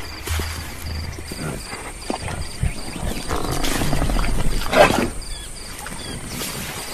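Savanna wildlife ambience laid over an animated scene: short high insect-like chirps repeat about three times a second. Low animal sounds and rustling rise to a louder stretch in the middle.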